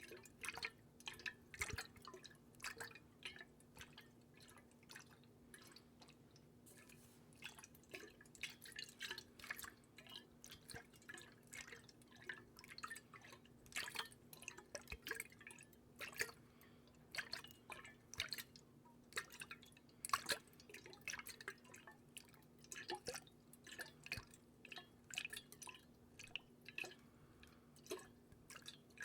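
Close-miked water dripping and small splashes: many irregular little drops, several a second, some louder than others.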